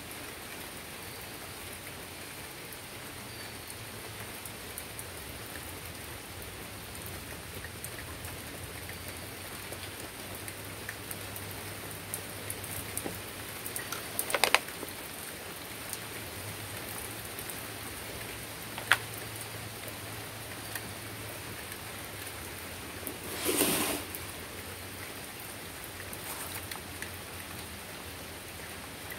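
Steady rain falling, with scattered drips ticking close by. A few sharper knocks stand out, the loudest about two-thirds of the way in.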